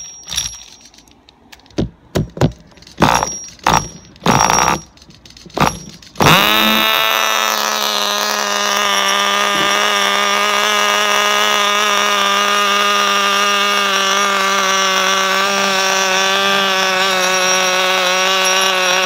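Sportwerks Chaos 1/16 nitro RC buggy's small glow engine being pull-started: several short pulls on the recoil starter, then it catches about six seconds in and settles into a steady, high-pitched idle.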